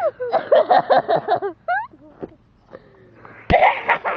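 A person's voice making wordless sounds, then a short harsh burst near the end.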